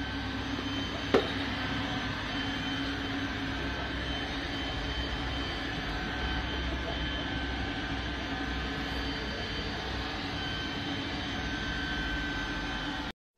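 Robot vacuum cleaner running: a steady whirring hum with a held whine over it. A single sharp knock about a second in, and the sound cuts off abruptly near the end.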